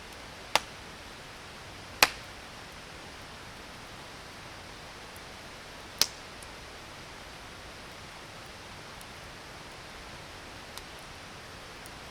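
Wood campfire popping: three sharp cracks in the first six seconds and a faint one near the end, over a steady hiss.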